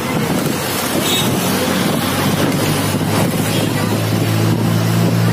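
Bus engine running and road noise heard from inside the moving bus, with wind on the microphone. The engine's low drone grows stronger in the second half.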